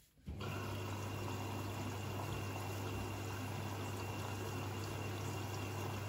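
Siemens front-loading washing machine's water inlet valve opening a moment in, with water rushing steadily into the machine to start the wash cycle. A steady low hum runs under the water noise.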